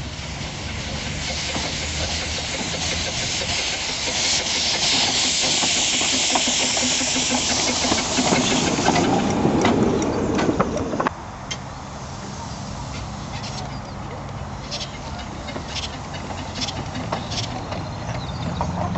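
A locomotive on a 15-inch gauge railway venting with a loud hiss that builds up and then cuts off suddenly about eleven seconds in. A steady low engine hum runs underneath, and a few scattered clicks follow once the hiss stops.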